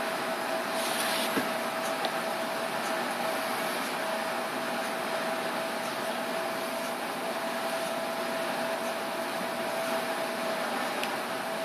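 Steady room noise: an even hiss and hum with a faint constant high tone, like a fan or electrical appliance running. A brief soft rustle and click come about a second in.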